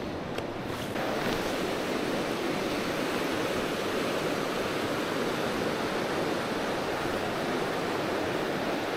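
River water rushing over rocks in a shallow riffle: a steady rushing noise that gets a little louder about a second in.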